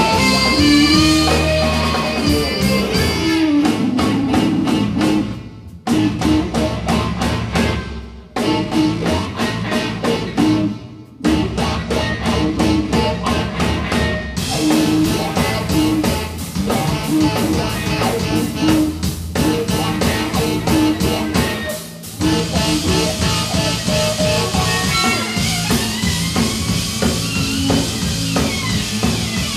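Live band playing instrumental rock on drum kit, electric bass and electric guitar. The band breaks off sharply and comes back in several times, about 6, 8 and 11 seconds in.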